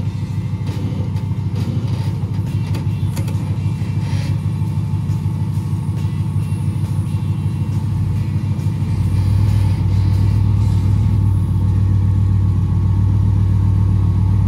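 Off-road rock crawler's engine running at low speed, growing louder about nine seconds in.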